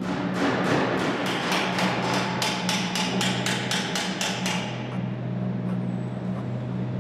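Rapid run of sharp metallic clicks, about four or five a second, as a hand tool works along the flanged edge of a bare aluminium body panel; the clicks stop a little past halfway. A steady low hum runs underneath.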